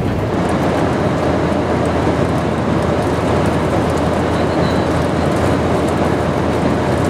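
Airbus A319 cabin noise in flight: a steady, even rush of airflow and jet engine rumble, with no rise or fall.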